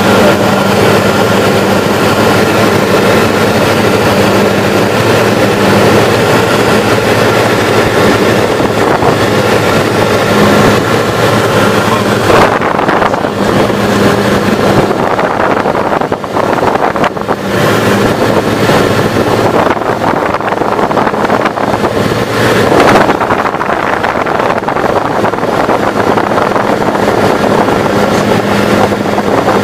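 Steady drone of a light propeller aeroplane's engine and propeller in cruise, heard from inside the cabin, with a low steady hum under a rushing noise.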